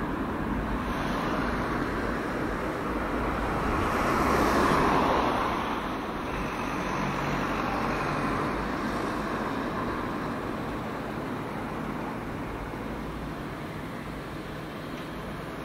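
Busy main-road traffic noise around a Toyota Camry 2.5 L hybrid moving slowly, mostly on its electric motor, so its own engine is barely heard. The noise swells about four seconds in and fades over the next two seconds, then eases lower as the car slows.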